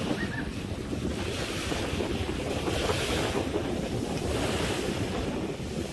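Wind rushing and rumbling on the microphone, swelling in gusts about two to three seconds in and again near four and a half seconds.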